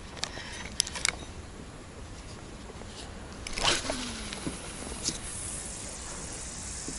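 Spinning rod and reel: a couple of sharp clicks about a second in, then a whoosh about halfway through as the jig is cast out, and another click from the reel later.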